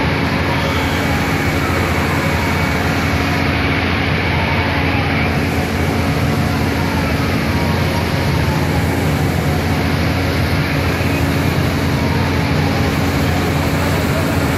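Steady engine rumble from the fire engines and motorcycles crowding the street, with faint falling tones now and then.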